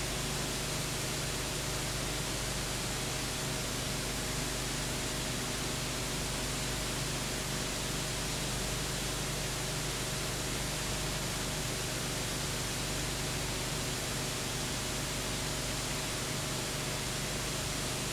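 Steady hiss with a low, steady hum underneath: the noise of a blank soundtrack, with no sound from the scene itself.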